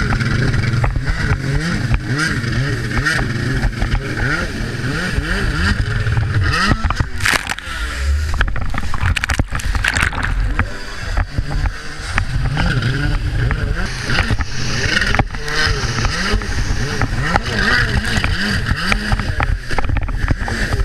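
Freeride jet ski's engine revving up and down again and again, its pitch rising and falling, over the rush of water, with a couple of sharp knocks near the middle.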